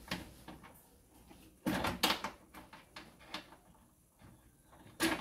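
Clicks and knocks of cables being unplugged from the back of a CCTV DVR and the recorder being handled on its wire shelf: a sharp knock at the start, a loud cluster of clatter about two seconds in, and another sharp knock near the end.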